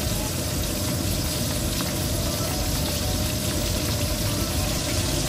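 A fish steak frying in hot oil in a wok, with a steady sizzle.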